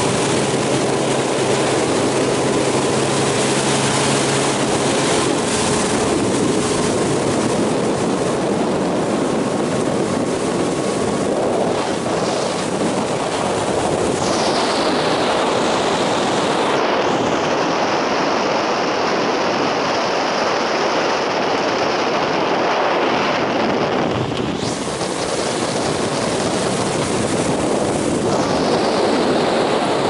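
Motorboat under way at speed: a steady loud rush of wind buffeting the microphone and water streaming off the hull, with the engine's hum heard beneath it in the first few seconds.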